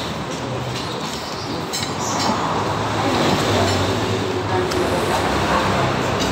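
Steady road traffic noise, with an engine growing louder about two seconds in and easing off near the end. A few light clinks of a metal fork and spoon against a plate are mixed in.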